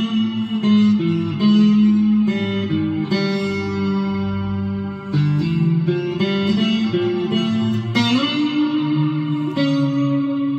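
Electric guitar played through effects with echo. Notes and chords are each held for about half a second to a second before moving to the next, in a slow melodic line.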